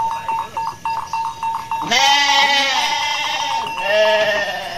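Sheep bleating several times: a quavering, trembling bleat held on one pitch, then two long bleats about two and four seconds in.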